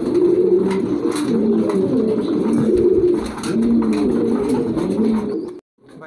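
Several domestic pigeons cooing together in a loft, a dense, overlapping low cooing that cuts off suddenly near the end.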